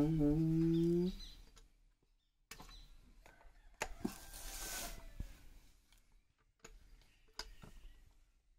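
Scattered light clicks and knocks from parts of a power weeder being handled during assembly, with a short hiss about four seconds in.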